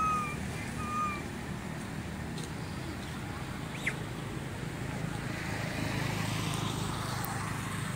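Outdoor ambience: a steady low rumble of distant traffic, with two short, slightly falling whistled bird notes about a second apart near the start.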